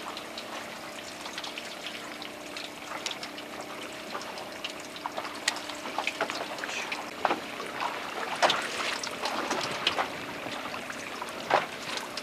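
Water lapping and splashing against the hull of a drifting fishing boat, with scattered small clicks and knocks, over a faint steady hum in the first half.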